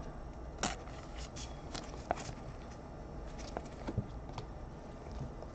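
Faint, scattered ticks and rustles of trading cards being handled and slid through a pack by gloved hands.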